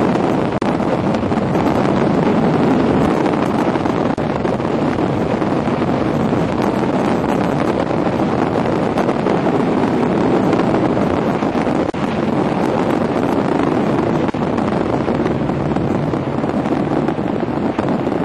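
Luge sled running at speed down an ice track: a steady loud rush of the steel runners on ice, mixed with wind on the microphone.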